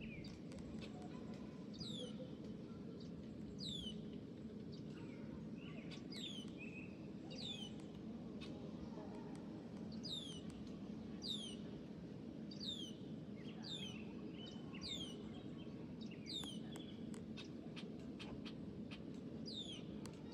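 A bird calling over and over with short, sharp downward chirps, about one every one to two seconds, over a steady low background rush.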